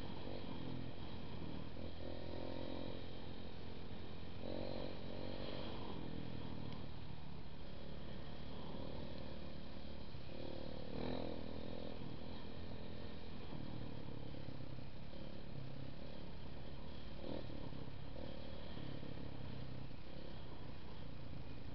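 Dirt bike engine running on a trail ride, its revs rising and falling every few seconds as the throttle is worked.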